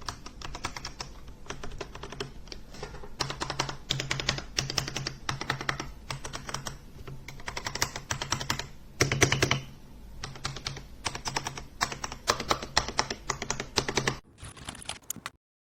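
Fast typing on an RK Royal Kludge RK61 60% mechanical keyboard: a dense stream of key clicks in runs with short pauses, and a louder flurry about nine seconds in.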